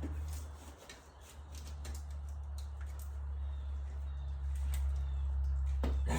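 Steady low rumble that grows slowly louder, with scattered light clicks and taps of hands handling spark plug wires and engine parts.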